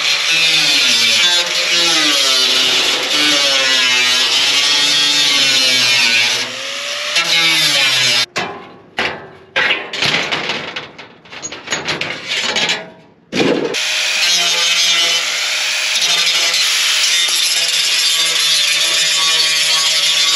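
Angle grinder with a cut-off wheel cutting corrugated sheet-metal roofing, its motor pitch wavering under load. About eight seconds in the steady cutting breaks off into a few seconds of short, stop-start scraping. The wheel then spins back up with a rising whine and cuts steadily again.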